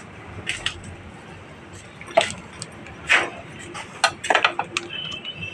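Light metal clinks and taps of tools and parts on a Bajaj Discover motorcycle engine's valve rocker adjusters, a few separate strikes with a small cluster near the end, while the valve clearance is being set.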